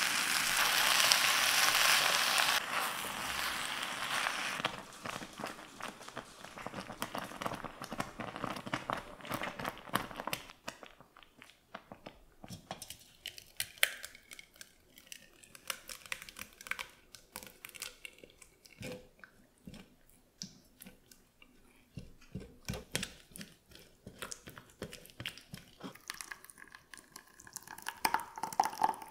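Cooked blueberry purée being worked through a fine-mesh metal sieve with many small wet clicks and squelches, after a loud steady rushing noise in the first few seconds. Near the end the strained coulis pours in a stream into a saucepan.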